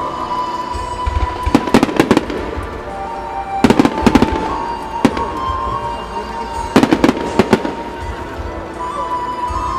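Fireworks bursting in three quick volleys of sharp bangs, about a second and a half in, near four seconds and near seven seconds, over music with a long held tone.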